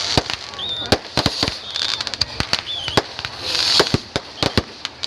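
Fireworks and firecrackers going off: many sharp bangs in quick, irregular succession over a crackling hiss.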